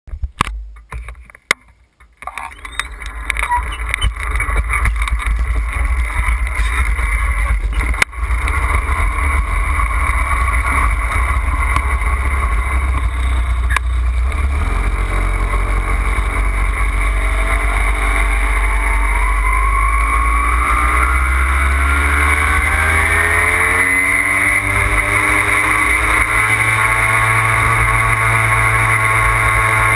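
Puch Maxi moped's small two-stroke engine running under way, with wind rumbling on the microphone. There are a few sharp knocks in the first two seconds. A little past halfway the engine note climbs steadily in pitch for several seconds as it picks up speed, then holds steady.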